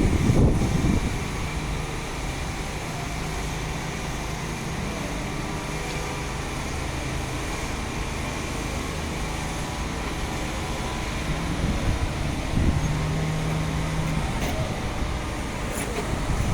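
Road traffic: car engines running and passing over a steady low hum, with louder swells as vehicles come close near the start and about twelve seconds in.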